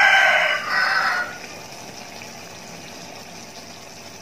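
A rooster crowing: a loud pitched call that ends a little over a second in. A steady background hiss follows.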